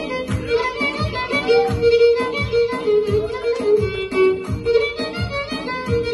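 Violin playing a flowing melody over a steady drum beat of about two beats a second.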